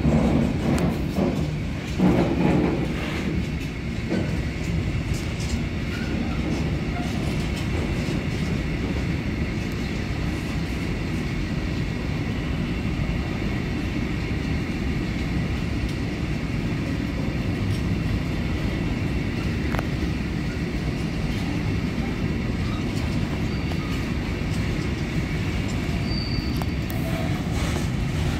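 A train running past on the track close by: a steady rumble of wheels on rails, louder and rougher in the first few seconds, then even.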